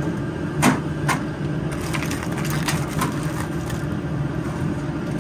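Live blue crabs clattering as they are lifted from a plastic crate and dropped into a perforated stainless-steel boiling basket: scattered clicks and scrapes of hard shells on shell and metal, over a steady low rumble.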